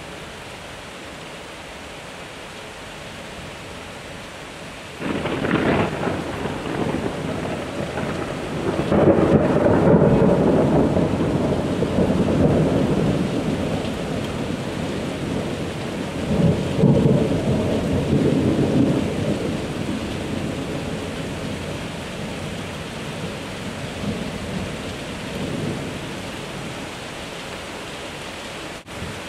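Heavy cloudburst rain hissing steadily, then about five seconds in a thunderclap breaks out suddenly and rolls on in long rumbling waves. The rumble is loudest a few seconds later, swells again midway, and fades slowly back under the rain.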